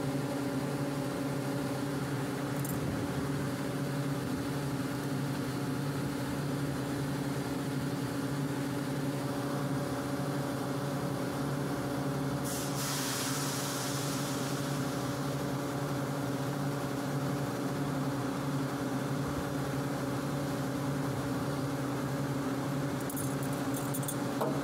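Atlas Copco GA160 rotary screw air compressor running with a steady machine hum. About halfway through there is a short burst of hissing air.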